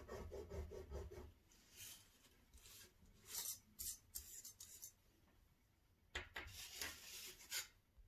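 Faint handling of a small square of aluminium foil: quick, even rubbing strokes in the first second, then bursts of crinkling and rustling of the foil, the last and longest near the end.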